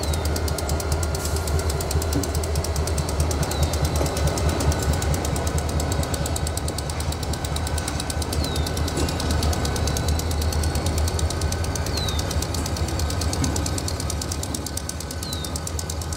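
Diesel locomotive engine running steadily close by, a deep rumble with a fast pulse to it.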